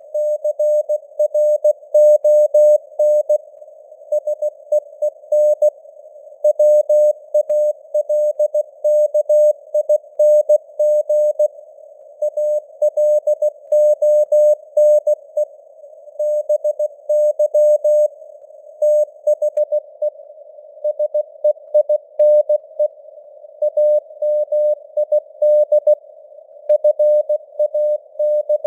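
Morse code (CW) sent at 16 words per minute: a single steady tone of about 600 Hz keyed on and off in dots and dashes, with word gaps between. It sits in simulated radio receiver noise, and the signal strength rises and falls with fading (QSB).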